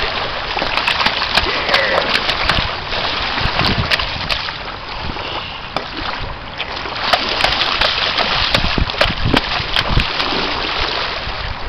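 Water splashing and sloshing in the shallows as a hooked bat ray thrashes while being handled at the shoreline, with small waves washing in. Many short, sharp clicks and spatters are scattered through it.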